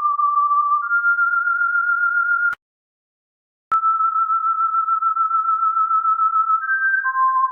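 Electronic sine-wave tones, one pure pitch at a time, holding steady notes and stepping up in pitch twice. Then a click, about a second of silence, and another click as a steady tone returns. Near the end it steps down through lower notes.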